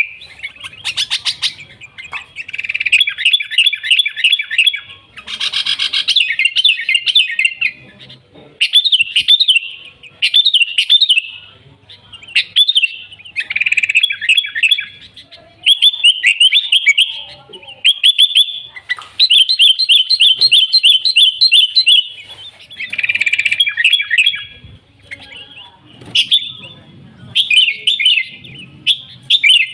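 Sooty-headed bulbul (kutilang) singing vigorously: phrase after phrase of quick, bright chirps, each burst lasting a second or two with short pauses between.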